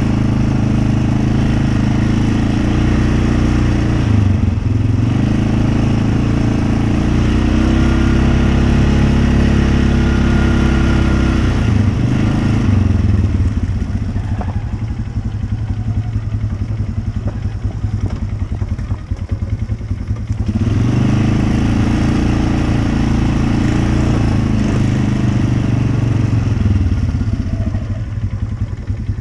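Off-road vehicle engine running loud, revving up and holding in two long pulls, with a lower, rougher stretch between them and a drop near the end.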